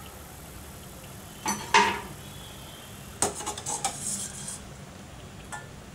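Stainless steel slotted skimmer clinking and scraping against a steel kadai as fried murukku are lifted out of the oil. Two sharp clinks come about a second and a half in, then a quick run of clinks and scrapes a little after three seconds, and one faint click near the end.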